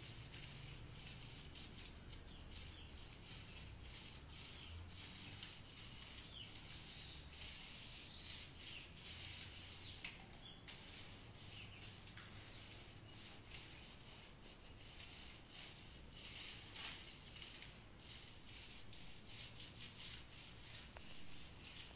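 Paint roller rolled back and forth over rough mortar render, a continuous rasping hiss made up of many short strokes.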